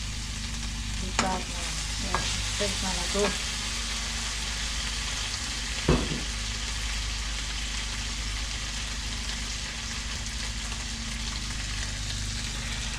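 Chicken frying in a karahi, a steady sizzle with a few light knocks from stirring in the first few seconds and a louder knock about six seconds in.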